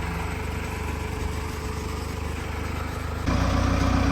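Telehandler's diesel engine running steadily, then speeding up and getting louder about three seconds in.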